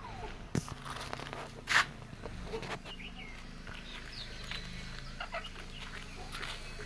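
Chickens clucking and chirping in short, scattered calls, with a few faint clicks and one louder brief burst of noise about two seconds in.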